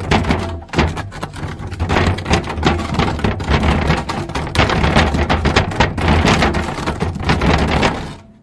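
Wooden barrel being dragged along the ground: a continuous rough scraping rumble full of small wooden knocks and clicks, fading out near the end.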